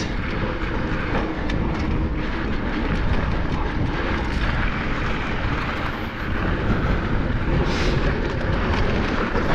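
Wind buffeting the microphone over the rumble of mountain-bike tyres on a hard-packed dirt trail, ridden fast downhill, with a few short rattles and clicks from the bike.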